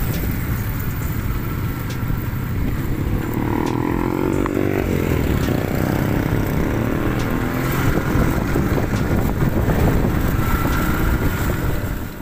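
Road traffic heard from a moving vehicle: a steady rumble of engines, tyres and wind, with motorcycles going by. About four to five seconds in, one engine's pitch rises and then falls as it passes.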